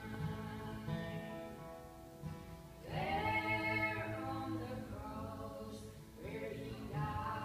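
Two women singing a gospel hymn together to acoustic guitar, a louder sung phrase starting about three seconds in.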